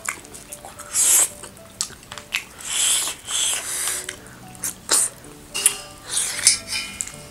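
Close-miked mukbang eating sounds: wet squishes and slurps as hands work soft finger-millet dhido in soup and mouths chew, coming as a string of short, irregular bursts. Faint background music runs underneath.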